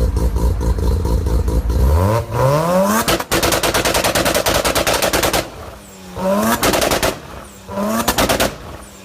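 Mazda RX-7 rotary engine idling, then revved hard three times, climbing quickly in pitch and breaking into a fast crackle of exhaust pops at the top of each rev before dropping back.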